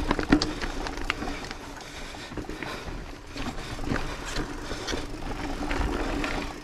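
Mountain bike rolling down a dirt and gravel singletrack: steady tyre noise on the trail, with scattered clicks and rattles from stones and the bike's chain and frame.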